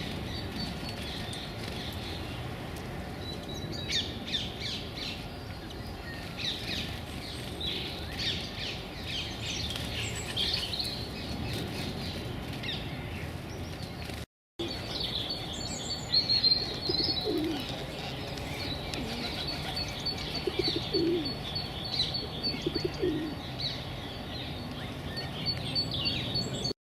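Small birds chirping and calling in quick, repeated high notes, with a few low rising calls in the second half and a brief dropout about halfway.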